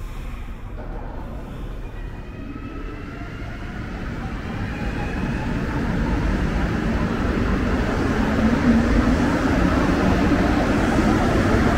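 Montreal metro Azur train on rubber tyres pulling away and accelerating. Its motors' whine rises in pitch while the rolling rumble grows steadily louder.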